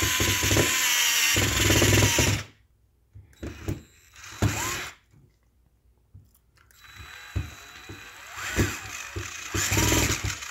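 DeWalt 8V gyroscopic inline screwdriver driving a screw back into an outlet. Its motor runs with a steady whine for about two and a half seconds, then gives a few short bursts. From about seven seconds in it runs again, its pitch rising and falling as the speed changes with the tilt of the tool.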